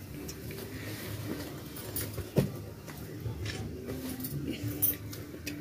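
Quiet room noise with a faint low hum, a few small clicks and one sharper tap about two seconds in.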